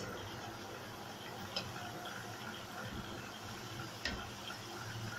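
Puri deep-frying in hot oil in a kadai, a steady sizzle, with two light ticks of a metal slotted spoon against the pan, at about one and a half and four seconds in.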